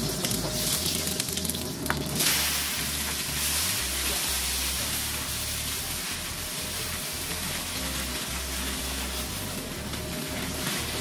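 Food sizzling in hot oil in a pan, the sizzle growing louder and brighter about two seconds in and then holding steady.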